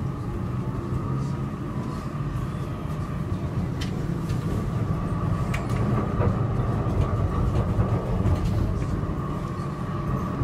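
Tram heard from inside while it runs: a steady low rumble of wheels on the rails with a thin continuous whine above it, and a few short sharp clicks.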